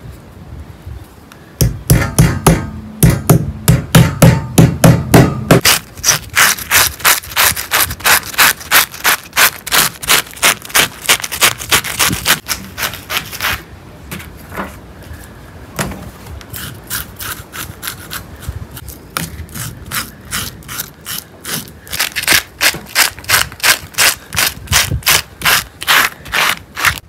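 Fish scaler scraping scales off a whole fish in quick rhythmic strokes, about three a second. The strokes are heavier for the first few seconds, thin out and go quieter around the middle, then pick up again near the end.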